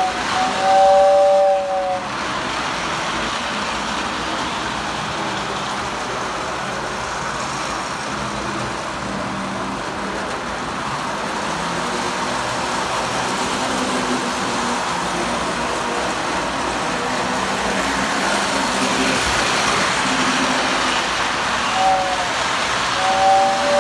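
Postwar Lionel #2055 O-gauge steam locomotive and its train running on three-rail track, freshly cleaned and oiled: a steady rattle and hum of motor and wheels. The tender's two-tone whistle blows for the first couple of seconds and again near the end.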